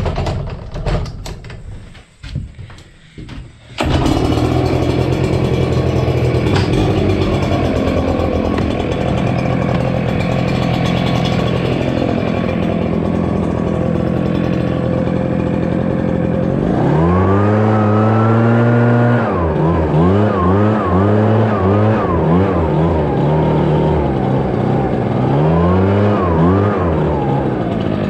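Clatter of equipment being handled on a trailer rack, then an Echo two-stroke backpack leaf blower running steadily, coming in suddenly about four seconds in. A little past halfway its engine is revved up and held, then blipped up and down over and over.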